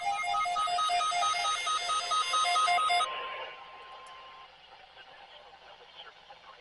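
Weather alert radio sounding its alarm: a rapid, repeating pattern of pulsing beeps alternating between pitches, over a steady warning tone, signalling a severe thunderstorm warning. The beeping stops abruptly about three seconds in, leaving a faint radio hiss that cuts off near the end.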